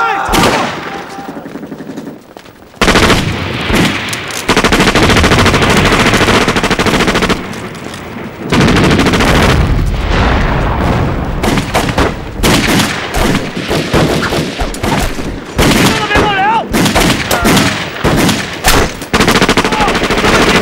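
Continuous battle gunfire, rapid machine-gun bursts and rifle and pistol shots, mixed with explosions. Men shout in the middle of the stretch.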